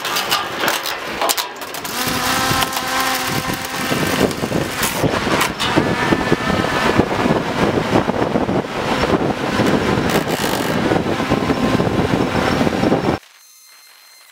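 DJI Phantom 3 Standard quadcopter's motors whirring through its takeoff, with heavy wind noise on the microphone. The sound cuts off abruptly about a second before the end.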